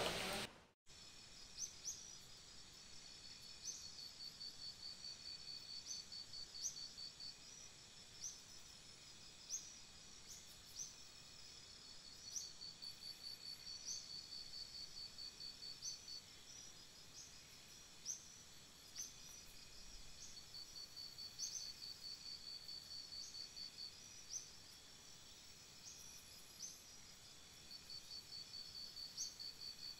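Crickets chirping faintly: trains of rapid high-pitched pulses every few seconds, with single short chirps in between. A brief patch of rain noise cuts off abruptly under a second in.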